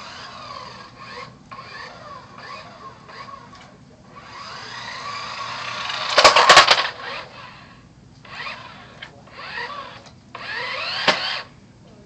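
Small electric motor of a remote-control Shelby GT500 Mustang toy car whining as it revs up and down in short bursts, the pitch rising with each burst. The longest run builds from about four seconds in to the loudest point, where a brief clatter of knocks comes as the car speeds past; further short revving bursts follow, with a sharp click near the end.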